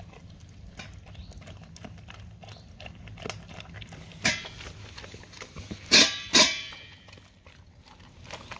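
A dog eating wet food and kibble from a stainless steel bowl: soft wet chewing and smacking clicks, with a sharp knock about four seconds in and two loud ringing clanks of the steel bowl a moment later.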